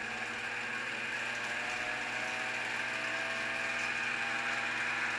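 Sieg X2 mini mill spindle running steadily at speed, a steady mechanical whir. The spindle is working properly.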